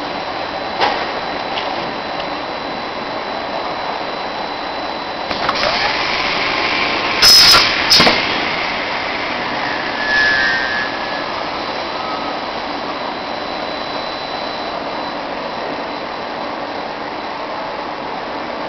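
Automatic saw cutter on a CPVC pipe extrusion line cutting through a pipe, over the steady noise of the running line. The cut starts about five and a half seconds in with a rising sound, and two short, loud noises follow near eight seconds.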